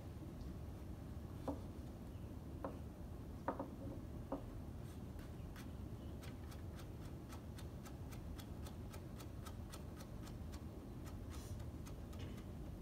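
Kitchen knife slicing carrot into julienne on a plastic cutting board: a few separate knocks at first, then a steady run of quick knife taps on the board, about four a second, for several seconds.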